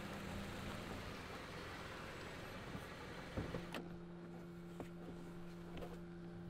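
A car door unlatching with a sharp click and swinging open, about halfway through, over a faint even outdoor hiss. A steady low hum starts just before the click.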